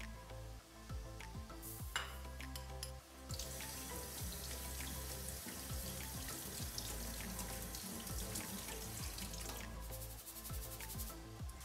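Tap water running into a stainless steel sink as quinoa is rinsed in a fine-mesh sieve, starting about three seconds in and stopping shortly before the end, after a few light knocks of handling. Music plays underneath.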